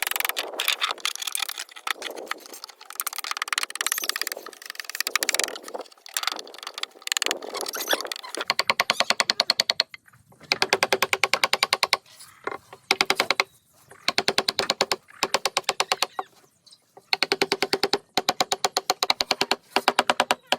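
Hand wood carving: a chisel scraping and cutting through wood, then struck in fast, even taps in short runs with brief pauses.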